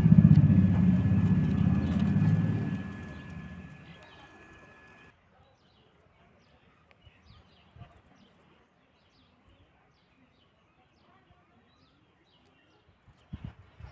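A loud low rumble fades away over the first four seconds and cuts off. After that, small birds chirp faintly in a quiet garden.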